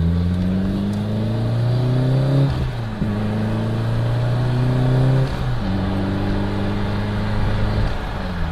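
BMW E30 M3 Evo 2's four-cylinder S14 engine pulling under acceleration, its note rising steadily and dropping sharply at two upshifts, then running at a steadier pitch.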